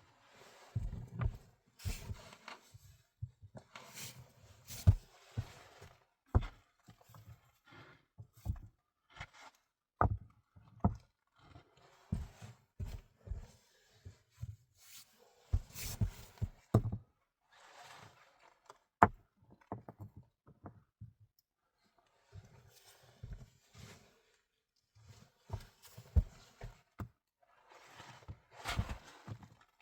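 Irregular knocks, taps and rustling, a few every second, from things being handled and set down.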